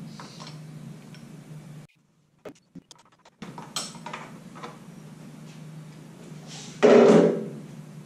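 Faint metallic clicks and clinks of a wrench and a handlebar mirror being handled during mirror removal, over a steady low hum. The sound drops out for about a second and a half near the two-second mark, and a louder, short clunk comes about seven seconds in.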